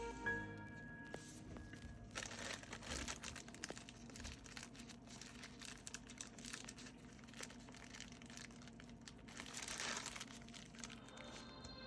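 Packaging crinkling and rustling as it is handled, with irregular small crackles and a louder spell of rustling near the end.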